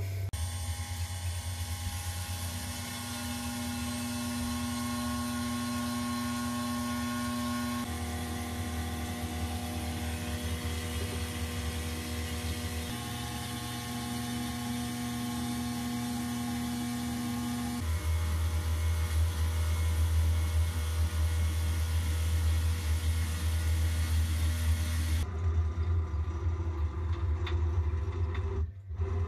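CNC router spindle running at 7200 rpm while a 3 mm endmill cuts a slot in a grade 5 titanium (Ti-6Al-4V) plate: a steady hum with several whining tones. The pitch and loudness shift abruptly a few times.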